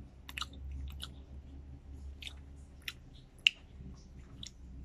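A person chewing grapes with the mouth closed: soft, wet, irregular squelches and small clicks. One sharp click stands out about three and a half seconds in.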